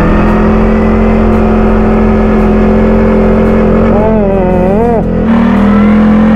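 ATV engine running steadily under the rider at speed. The engine note dips briefly about five seconds in, then settles and pulls steadily again. Just before the dip, a short wavering voice-like sound rises over it.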